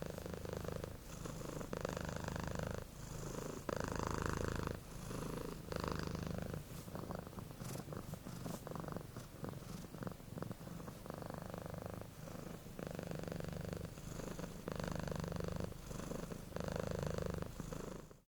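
Domestic cat purring steadily, close up, swelling and easing in repeated waves every second or two as it breathes in and out.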